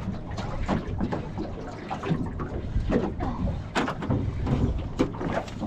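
Water slapping against a small boat's hull and wind on the microphone, with irregular knocks and clatter in the boat.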